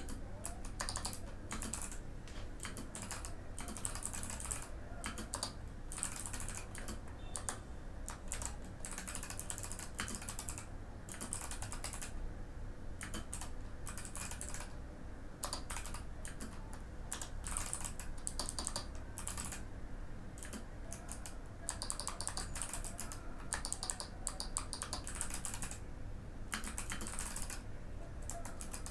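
Typing on a Mikit M65 mechanical keyboard with clicky Box White switches: fast runs of crisp keystroke clicks, broken by short pauses.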